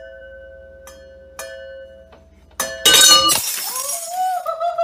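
Wine glasses clinking and ringing as a cat paws at a wine rack, then a loud crash of breaking glass a little before three seconds in. A long high-pitched cry follows near the end.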